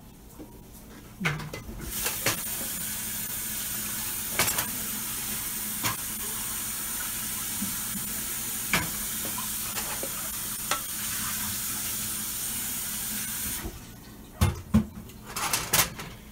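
Kitchen tap running in a steady hiss, turned on a couple of seconds in and shut off abruptly after about twelve seconds. Occasional clinks of dishes or utensils, with a few louder knocks and clatter after the water stops.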